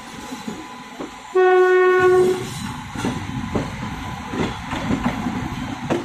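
An Indian Railways electric locomotive sounds one loud horn blast, about a second long, starting just over a second in. Then the low rumble and clatter of the approaching locomotive's wheels on the rails.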